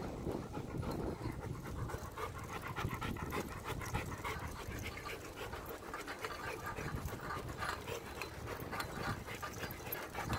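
A German Shepherd panting rapidly in an even rhythm while running beside a moving bicycle, over a steady low rumble of wind and tyres.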